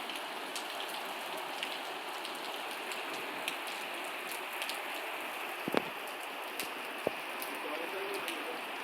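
Steady rain falling, a constant hiss dotted with scattered drop taps, with two sharper, louder drops about six and seven seconds in.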